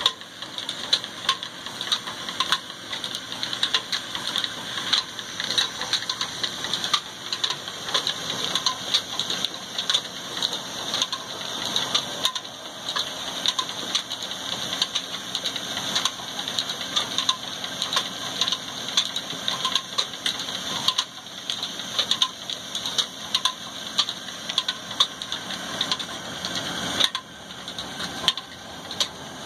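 Stone flour mill (chakki) running and grinding grain into flour, driven by an old black diesel engine: a steady mechanical running sound with a dense, uneven rattle of clicks.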